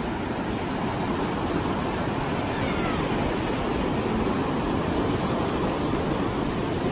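Pacific Ocean surf washing steadily onto the beach, an even rushing noise. A faint high gliding call is heard about three seconds in.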